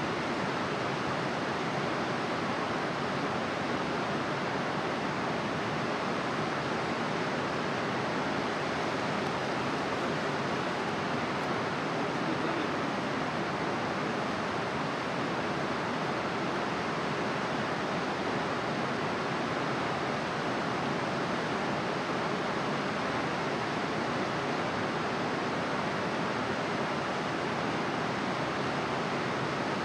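Steady, even rushing noise of running water, unbroken by any other sound.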